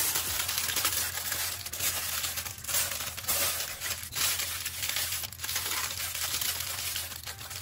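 Aluminium foil, doubled over, crinkling and crackling as hands fold and crimp it around a joint of beef: a continuous rustle that swells and dips with each fold.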